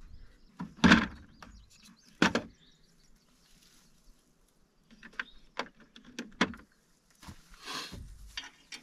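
Hand-tool work in a bulldozer's engine compartment: a few clunks and knocks, the loudest about a second in, then light clicks and rattles of sockets being picked from a plastic socket tray.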